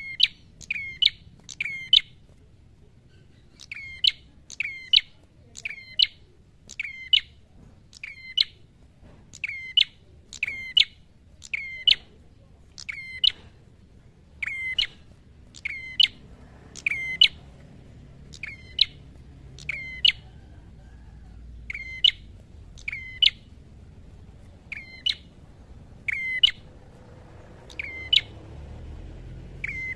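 A caged tailorbird (prenjak kepala merah) calling nonstop in a loud, sharp, high note repeated about once a second, with a few brief pauses, in the vigorous 'gacor' fighting-song mood.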